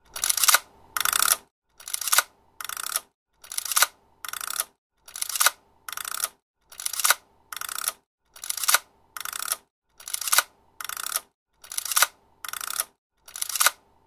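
Old film camera's mechanism cycled over and over by its lever. Each cycle is a sharp mechanical click followed by a short burst of clicking, repeating evenly about every second and a half to two seconds.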